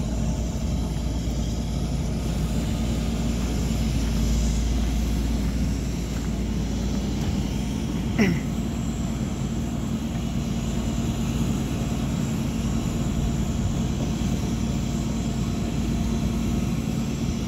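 Heavy wrecker's diesel engine running steadily as it lifts the overturned trailer on its boom. About halfway through comes one short squeak that falls in pitch.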